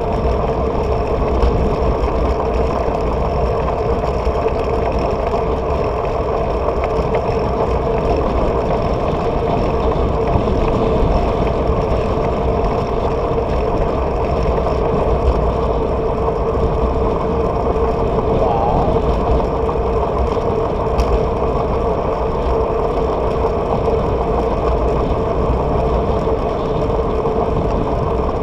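Steady wind rumble and road noise from a moving bike, heard on a handlebar-mounted camera, with a constant hum underneath.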